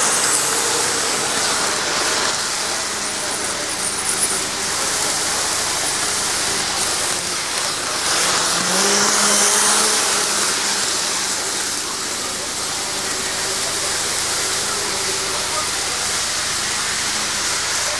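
N-gauge model electric trains running on the track: a steady rolling hiss with a faint motor hum that rises in pitch briefly about eight seconds in.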